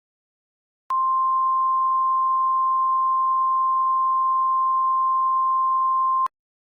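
A single steady electronic alert tone near 1 kHz, the attention signal that sounds before an emergency alert bulletin. It starts with a click about a second in, holds unchanged for about five seconds, and cuts off suddenly.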